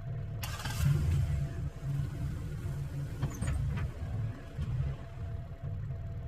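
An engine running steadily at a low pitch, with a short rush of hiss about half a second in.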